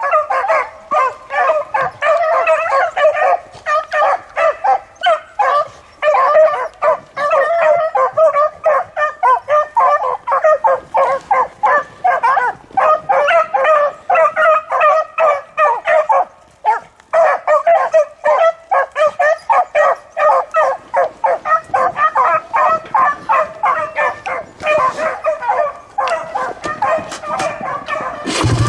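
A pack of beagles baying in rapid, overlapping barks, several voices at once, with a brief lull about halfway through: hounds giving tongue as they run a rabbit track.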